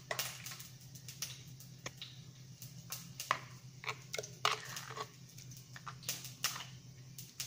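Dollops of sour cream being spooned into a glass blender jar: scattered soft knocks and clicks of the utensil against the jar and the sour cream container, a dozen or so spread through, over a steady low hum.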